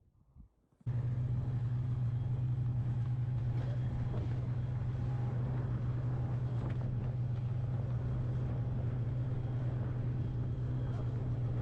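Snowmobile engine running at a steady speed, a constant loud drone with no change in pitch, starting suddenly about a second in.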